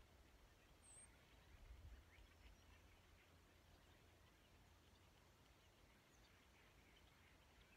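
Near silence: faint outdoor ambience with a low rumble, scattered faint high chirps and one brief high chirp about a second in.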